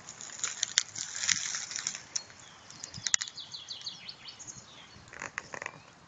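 Dry fallen leaves rustling and crackling in irregular bursts. A short, rapid high bird trill comes about three seconds in.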